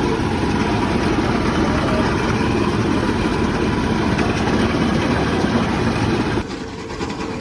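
Steady vehicle rumble of engine and road noise, dropping off abruptly near the end.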